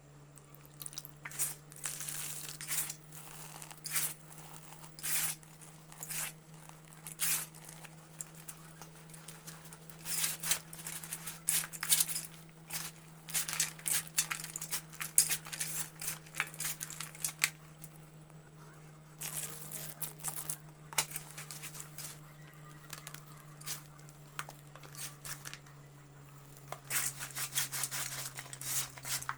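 Dried brown mud being crumbled by hand, crunching and crackling in irregular bursts, over a steady low hum.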